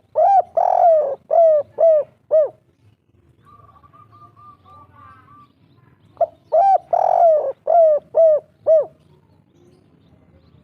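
Spotted dove (tekukur) cooing its 'kuk 3' song twice. Each phrase is a short note, a long note, then four shorter notes. Between the two phrases there is faint, quick, high chirping.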